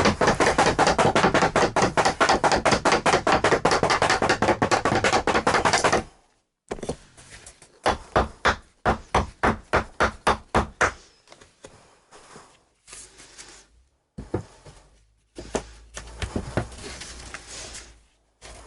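Hammering on a particle board floor panel to knock it into place over the beams: a fast run of blows for about six seconds, then after a short pause slower separate blows, then a few scattered knocks.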